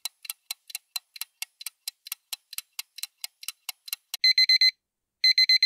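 Countdown-timer sound effect: a clock ticking fast, about five ticks a second, then a digital alarm-clock beeping in quick bursts of four short high beeps as the timer runs out, about four seconds in.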